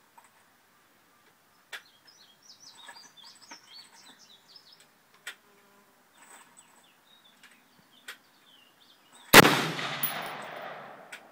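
A single shot from a .223 Colt AR-15 rifle about nine seconds in: one sharp, loud crack whose echo rolls away over about a second and a half. Before it, birds chirp faintly and a few faint sharp clicks sound.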